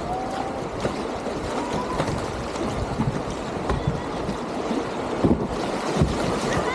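Whitewater rapids rushing and splashing steadily around a kayak, with scattered short splashes from paddle strokes.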